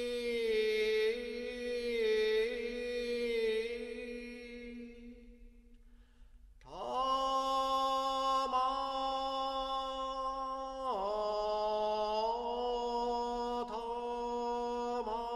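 A single voice chanting a mantra in long, held notes with small bends in pitch; the first note fades out about six seconds in, and a new one starts sharply just under a second later.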